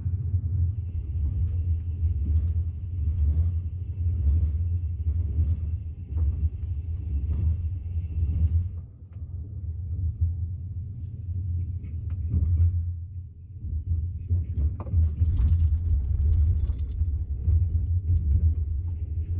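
Train carriage running: a steady low rumble with scattered clicks and knocks, and a faint high whine through the first half.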